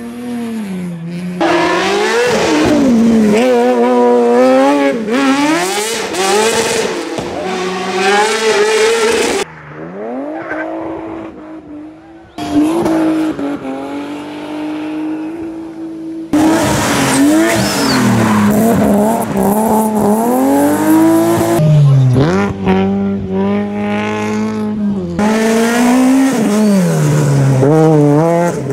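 Hillclimb race cars taking a hairpin, one after another in abrupt cuts: engines revving hard, dropping and climbing again between gear changes, with tyre squeal from cars drifting through the bend.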